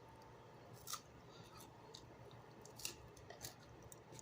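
Near silence with a few faint, short clicks: one about a second in and two more close together near the end.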